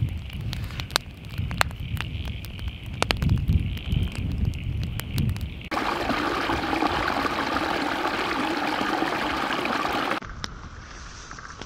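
Wood campfire crackling with sharp pops, while wind buffets the microphone. About six seconds in it gives way to a small creek running through grass, a steady rush of water, which stops abruptly near the end.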